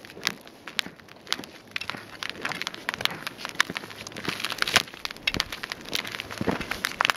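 Footsteps of several trekkers crunching and scuffing on river ice and thin snow, with the metal tips of trekking poles clicking on the ice. They come as irregular sharp crunches, two or three a second.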